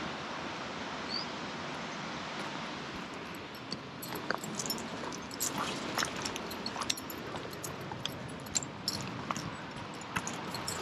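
Steady wind hiss at first. From about four seconds in, a string of small crunches and clicks comes in: a hiker's and a leashed dog's footsteps on a dry, gravelly dirt trail.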